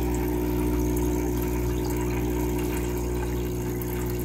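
SOBO SB-248A electromagnetic diaphragm aquarium air pump running at its minimum setting, a steady hum.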